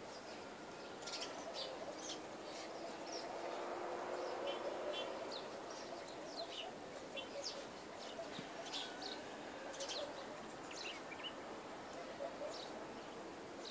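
Small birds chirping, short high calls scattered throughout, sometimes several in quick succession, over a steady rural background hiss.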